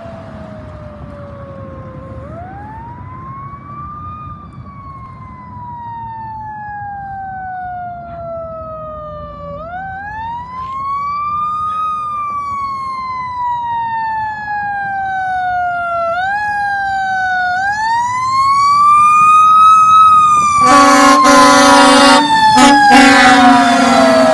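Fire engine responding with its siren wailing in slow rises and falls and one quick yelp, growing louder as it approaches. Near the end it sounds a string of short horn blasts over the siren as it passes close.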